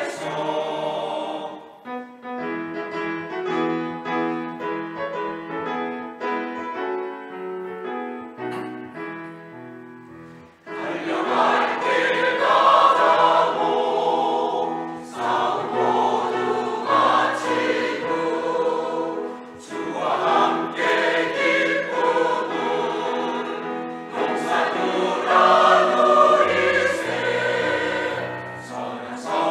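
Church choir singing an anthem with accompaniment. A softer passage of held notes gives way, about a third of the way in, to the full choir singing loudly.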